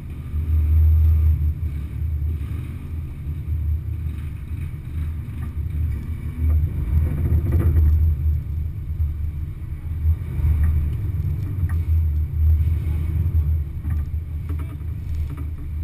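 Off-road vehicle engine running at low speed, an uneven, muffled low rumble that swells and eases as it crawls over rutted mud, with a few light knocks.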